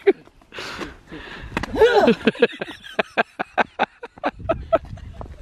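A woman's loud whooping call with a falling pitch, then a quick run of short laughing bursts.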